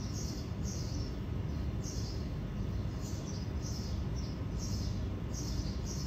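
Steady low hum of a clustered honey bee swarm, with short high bird chirps repeating irregularly about every half second.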